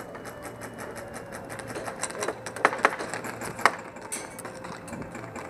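Rapid clicking of airsoft guns firing on full auto, a fast even rattle for about the first four seconds. Two louder sharp snaps come about two and a half and three and a half seconds in.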